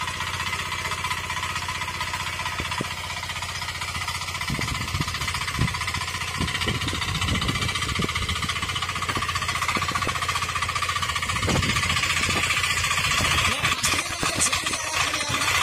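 Single-cylinder 9 HP diesel engine of a walk-behind power tiller running under load with a rapid, steady knock as it drags a weeder between crop rows. It gets a little louder near the end.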